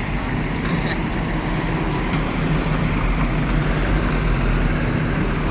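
Vehicle engine running with a steady low rumble, getting slowly louder.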